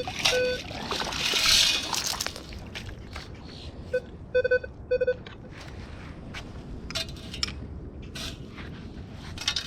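Metal detector sounding short, steady mid-pitched target beeps, a quick run of them about four to five seconds in, signalling a buried metal target. Early on, water and wet sand slosh as the sand scoop works the shallows.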